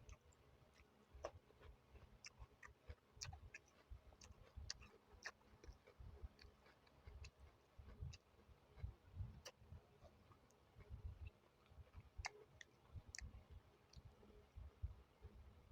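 Quiet eating sounds: many scattered sharp mouth and tongue clicks over irregular soft low thumps of chewing.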